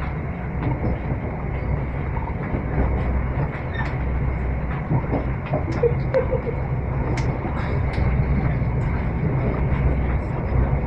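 A train running at speed, heard from inside the passenger carriage: a steady low rumble with scattered light clicks and rattles.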